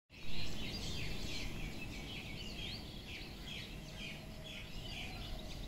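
Dawn chorus of many small birds: dense, overlapping short chirps and quick falling call notes, over a low background rumble.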